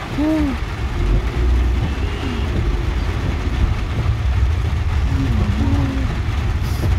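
Steady low rumble of a car's engine and road noise heard from inside the cabin while driving slowly through traffic, with a few faint, brief wavering tones shortly after the start and again about five seconds in.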